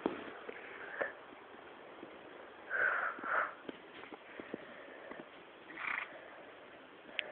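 A pony moving about loose in snow, with a few short sounds from the animal over a steady hiss: two close together about three seconds in and another near six seconds.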